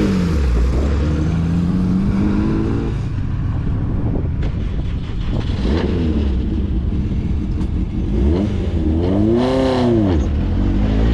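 Car engines running in a queue of track-day cars awaiting a noise test, with a steady low drone; one engine's note climbs slowly early on, and an engine is blipped in a quick rise and fall about nine seconds in.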